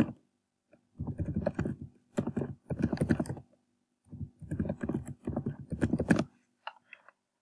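Computer keyboard typing in four quick runs of keystrokes with short pauses between them, as a password is entered and then entered again to confirm it.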